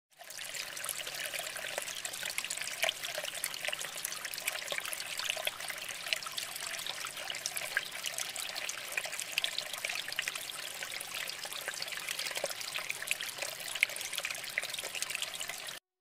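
Water trickling and splashing steadily as it spills from one clay pot into the next in a small terracotta-pot tabletop waterfall fountain. It cuts off suddenly just before the end.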